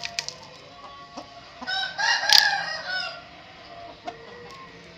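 A young cockerel crowing once: a short crow of about a second and a half, the unpractised crow of a cockerel still learning to crow.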